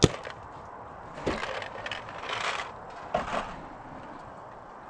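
A single sharp crack of paintball fire right at the start, followed by a few short bursts of scuffing and dull knocks.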